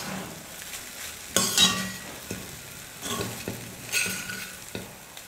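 A metal spatula stirring and scraping poha with scrambled egg and vegetables around a stainless steel kadai, over a low sizzle of frying. A few separate scraping strokes, the loudest about a second and a half in.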